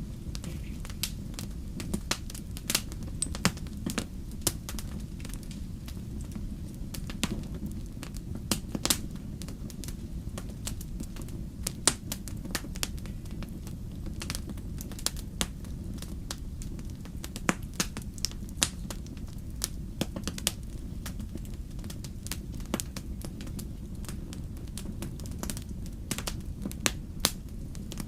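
Wood fire burning in a fireplace: a steady low rumble of the flames with irregular sharp crackles and pops from the burning logs, several every few seconds.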